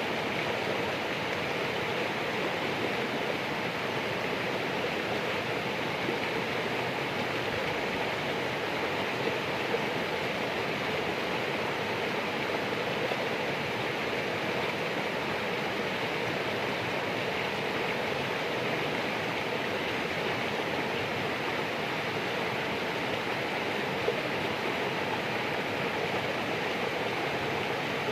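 Steady rush of flowing water, an even, unbroken sound with no swells.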